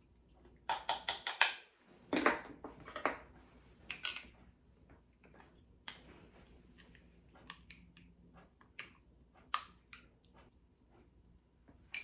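Kitchen handling noises: a quick run of about five sharp taps about a second in, a few louder knocks over the next few seconds, then scattered single clicks.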